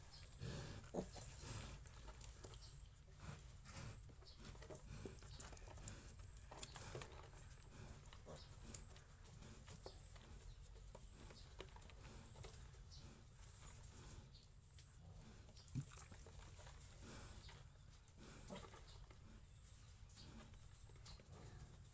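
Faint, scattered short sounds from a sow and her piglets, small knocks and grunts, over a steady low hum.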